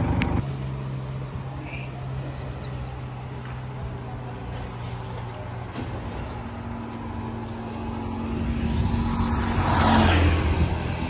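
Motor scooter engine running steadily, with the vehicle noise swelling to a louder peak about ten seconds in and then easing.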